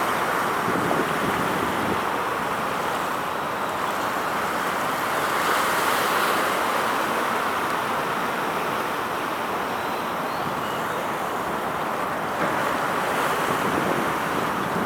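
Steady rushing of wind and sea water by the harbour, swelling slightly now and then, with wind buffeting the microphone.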